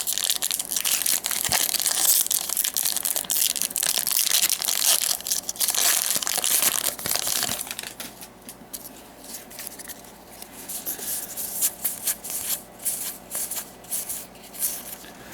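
Foil wrapper of a Magic: The Gathering booster pack crinkling and tearing as it is pulled open. About eight seconds in it gives way to quieter, scattered clicks as the cards are leafed through.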